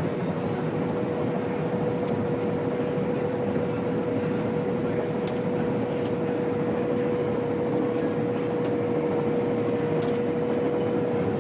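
Combine harvester running steadily while cutting wheat: an even mechanical drone with a constant whine held throughout and a few faint clicks.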